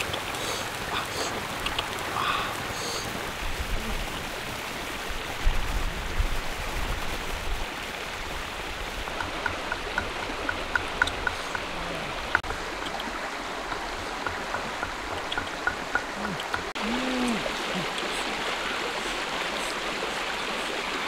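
Creek water running and babbling steadily, with a few short chirping calls over it and a brief low rumble about five seconds in.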